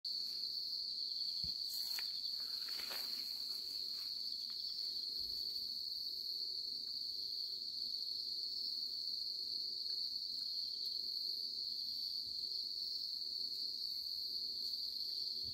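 Crickets chirring steadily in one high, unbroken tone, with a few faint rustles about two to three seconds in.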